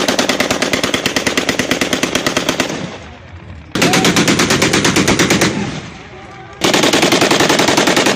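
Kalashnikov-type (AK-47 pattern) assault rifle firing on full automatic in three long bursts of about ten shots a second, each lasting two to three seconds, with short pauses between them.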